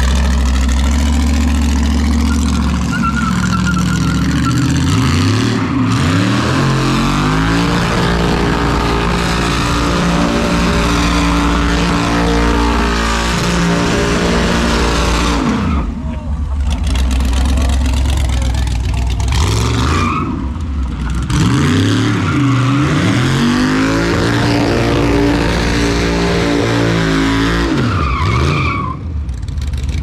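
Texas Speed 416ci LS3 V8 revving hard in repeated swells, the pitch climbing and falling several times, with tyre noise from a burnout. The revs drop off briefly a few times before climbing again.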